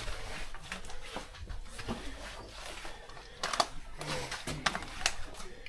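Scattered light clicks and scuffs with a couple of brief, faint low voice sounds, the sharpest clicks about three and a half and five seconds in.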